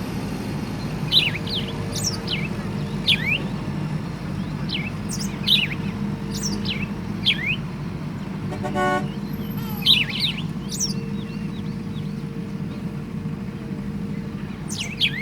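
Steady low rumble of heavy machinery running, with birds chirping over it in short downward-sweeping calls every second or two. A brief horn toot sounds about nine seconds in.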